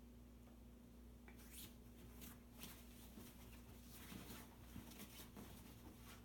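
Faint rustling of a puffy comforter as a dog roots into it with her head, in short irregular scuffs starting about a second in.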